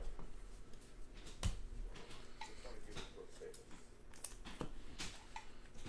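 Glossy Panini Prizm basketball cards being handled and flipped through by hand: a scattering of light clicks and taps as the stiff cards knock and slide against each other.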